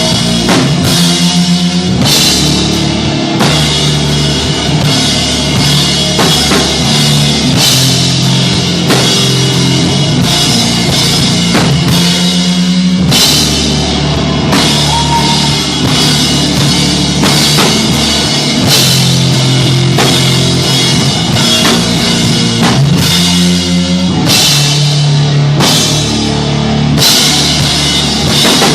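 Stoner rock band playing live: a drum kit with regular cymbal crashes over heavy, sustained low riffs.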